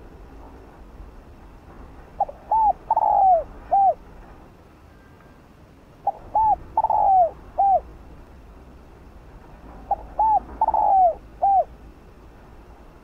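Spotted dove cooing: three identical phrases about four seconds apart, each made of two short coos, a longer drawn-out coo and a final short coo.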